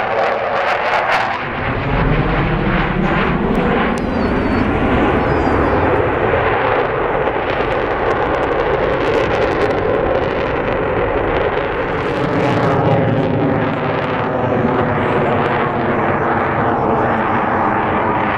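Twin turbofan engines of a CF-18 Hornet fighter jet, loud and continuous as it flies a display pass. The engine note falls in pitch as the jet passes near the start.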